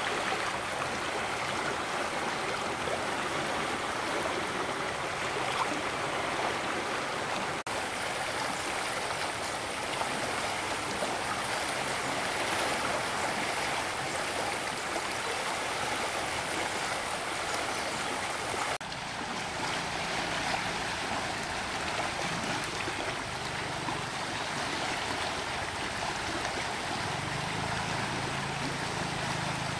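Flowing stream water running with a steady, even rush.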